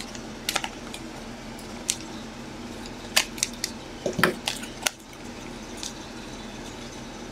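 Hands handling trading cards and hard plastic card holders: a scattering of short, light clicks and taps, with a small cluster about four seconds in.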